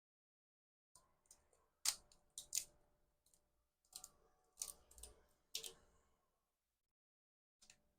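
Sharp clicks and crackles of a cooled, hardened PLA drawing from a 3D pen being peeled off the surface it was drawn on. The clicks come in an irregular run over a few seconds, the loudest near the start, with one last faint click near the end.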